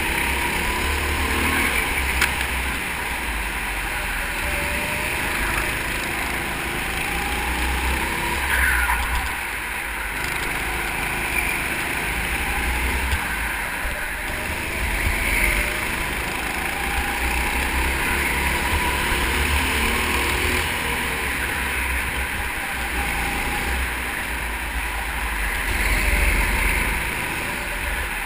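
Go-kart engine running flat out on a lap, its pitch rising and falling as it accelerates out of corners and eases off into them, over a steady low rumble.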